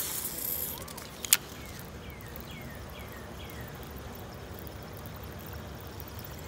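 Casting a fishing rod: a brief swish at the start and one sharp click about a second and a half in. This is followed by a run of about five short falling chirps, then only faint outdoor background while the line is reeled in.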